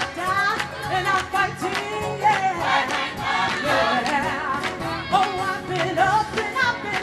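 Gospel choir singing in full voice with band accompaniment keeping a steady beat.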